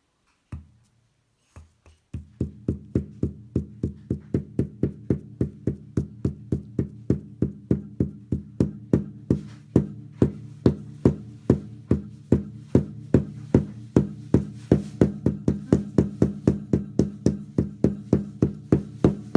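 A plastic dot marker dabbed again and again onto paper on a table, in quick even taps. The tapping starts about two seconds in at about three taps a second and quickens to about four, over a steady low hum.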